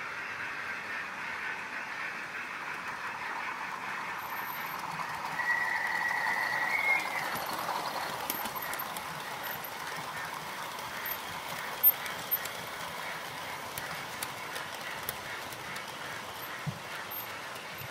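OO gauge model trains running along the track: a steady whirr with light regular ticking from the wheels. A brief high squeal about six seconds in, and a sharp click about twelve seconds in.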